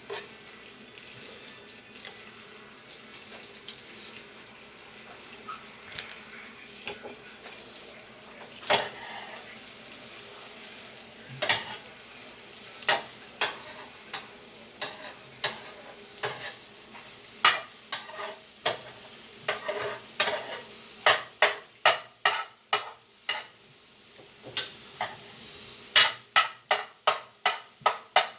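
Eggs sizzling in a frying pan while a utensil stirs them, clicking and scraping against the pan. The strokes come more often as it goes on, settling into a quick regular tapping of about two to three a second near the end.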